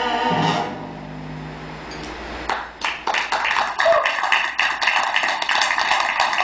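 A sung chord ends about half a second in and a low note is held briefly. Then, about two and a half seconds in, an audience breaks into applause: dense, irregular clapping.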